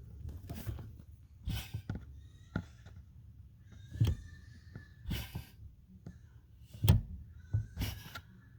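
A series of irregular knocks, thunks and short rustling handling noises, the loudest knock about seven seconds in.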